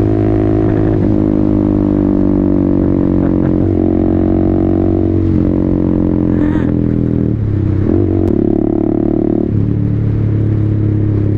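Motorcycle engine running under way, its note dropping and jumping several times as the throttle and gears change.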